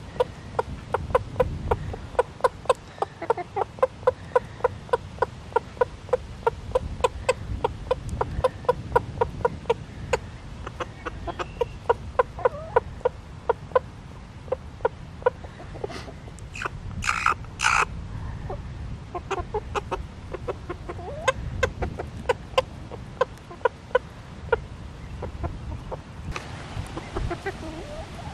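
Silkie and Wyandotte hens clucking in a steady run of short, quick notes, about three or four a second, the contented clucking of chickens foraging for food. Two sharper, louder sounds come about seventeen seconds in.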